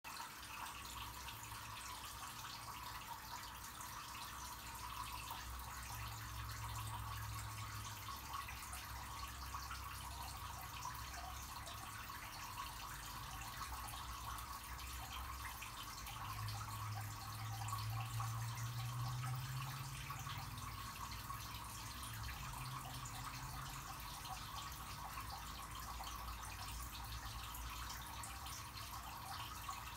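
Aquarium water circulating: a steady trickle of water with a low hum underneath.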